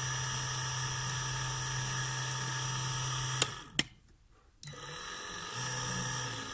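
Small 12 V DC diaphragm pump of a battery knapsack sprayer running with a steady whine. It is switched off with a click about three and a half seconds in, stays silent for a moment, then runs again, quieter, from about four and a half seconds.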